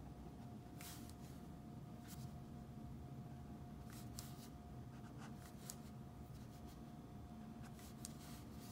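Faint scratching of a Stabilo Point 88 fineliner drawing short strokes on sketchbook paper, a few brief strokes spread over several seconds, over a thin steady room hum.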